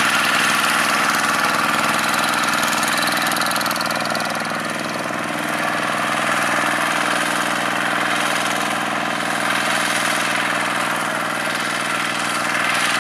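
Single-cylinder diesel engine of a two-wheel walking tractor running steadily under load as its cage wheels work through paddy mud, easing slightly about five seconds in and picking up again.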